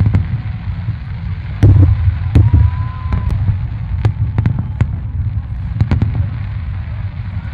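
Fireworks display: aerial shells bursting in a string of sharp bangs and crackles, the loudest about two seconds in, over a steady low rumble.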